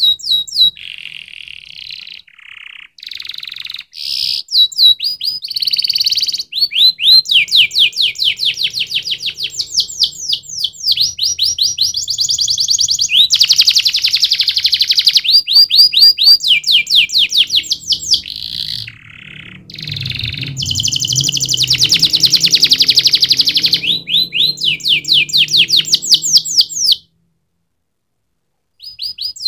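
Domestic canary singing a long, loud song of rapid repeated trills and rolling phrases, with brief pauses and a break of about two seconds near the end.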